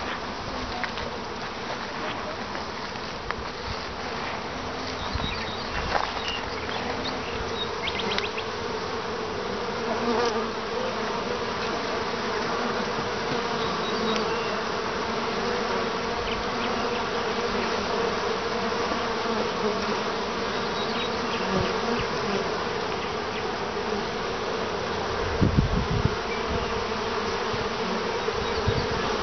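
Honey bees buzzing at a hive entrance: a steady, continuous hum of many bees flying in and out. A few brief low bumps come near the end.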